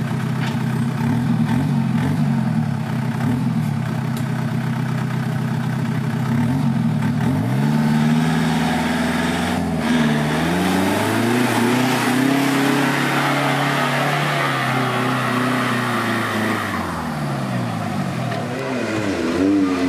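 Off-road 4x4 engine running steadily, then revving up about seven seconds in and rising and falling in pitch several times as it pulls under load, with a rushing noise over it through the middle.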